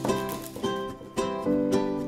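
Upbeat background music of plucked strings, in the manner of a ukulele or acoustic guitar, with a new plucked chord about every half second.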